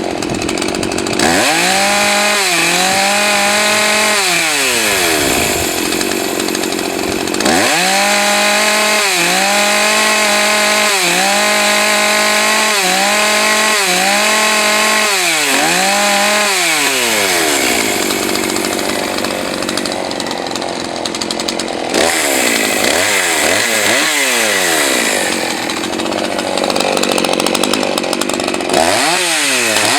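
Husqvarna 543 XPG two-stroke chainsaw revved up and held at full throttle, with a short dip about once a second, then dropped back to idle. This happens twice, followed by shorter blips of throttle near the end. Its top speed is lower than it should be, which the owner puts down to a carburettor that needs higher rpm on the high-speed setting.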